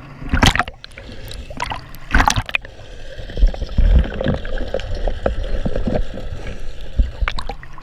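Seawater splashing and sloshing over a waterproof action camera at the surface, then muffled underwater rumble with low knocks from about two and a half seconds in, and splashing again near the end.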